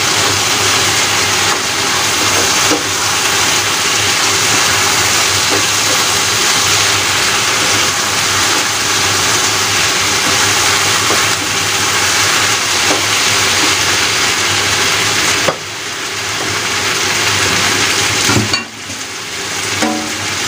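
Beef and shiitake mushrooms sizzling in a frying pan as a wooden spatula stirs them. The steady sizzle drops off suddenly twice near the end and builds back up each time.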